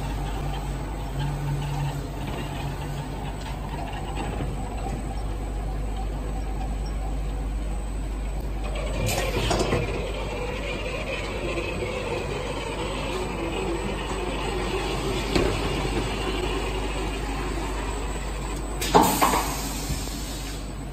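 Automatic board painting line running: conveyor rollers and belts carrying a fiber cement board, a steady machine noise. A short sharp burst of noise comes about nine seconds in and a louder one shortly before the end.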